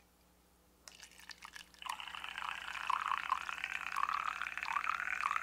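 Water poured from a metal kettle into a stainless steel mug. It starts as a thin trickle about a second in, then becomes a full stream splashing into the mug from about two seconds in.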